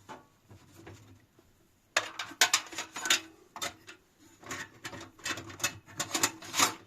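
Hands rummaging in an opened desktop PC case, with a quick, irregular run of plastic and metal clicks and rattles as parts and loose items are moved. A few faint clicks come first, then a dense clatter from about two seconds in.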